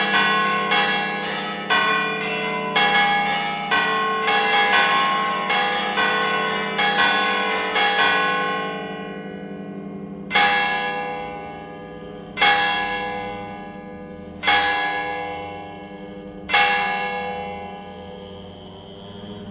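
Church tower bells ringing the call to worship: a quick run of strikes at about two to three a second, on more than one pitch, up to about eight seconds in. After a short pause come four single slow strikes about two seconds apart, each left to ring out and fade.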